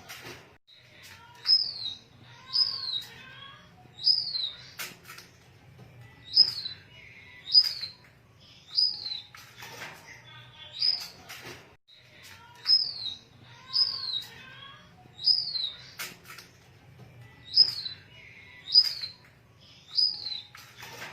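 Bengalese finch (society finch) calling over and over, a short chirping phrase about once a second, each with a high, sharply falling note.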